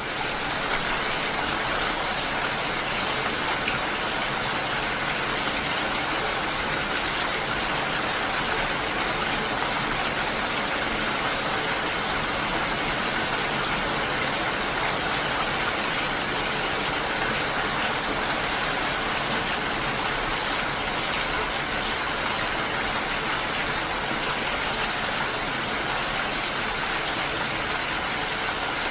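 Steady rain falling as an even, dense hiss, swelling up in the first moment and then holding level.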